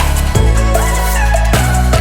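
Background music: an electronic hip-hop style track with a heavy bass line and a steady drum beat.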